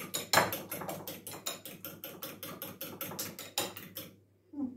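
Eggs being beaten by hand in a small bowl: a rapid, even clicking of the utensil against the bowl, about eight strokes a second, which stops about four seconds in.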